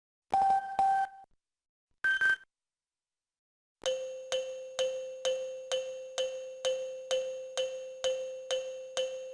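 Motorola ZN40 phone's system tones: a short two-note beep, then a brief higher beep, then after a pause a chiming alert tone that repeats about three times a second.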